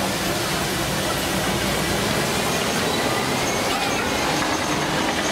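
Open-sided safari truck driving over a rough, bumpy dirt track: a steady rumble of engine and road noise heard from inside the vehicle.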